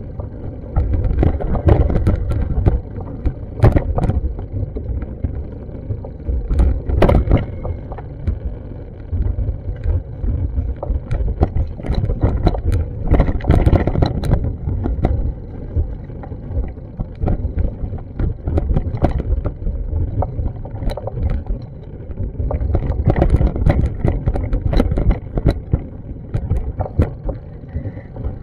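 Uneven low rumble of wind buffeting a small action camera's microphone outdoors, swelling and easing, with scattered sharp clicks and knocks from the street.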